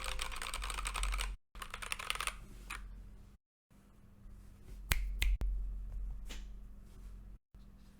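Typing on a Keychron K8 mechanical keyboard fitted with Gazzew Boba U4T tactile switches: quick runs of keystrokes for the first few seconds, then a few scattered strokes, two of them louder about five seconds in.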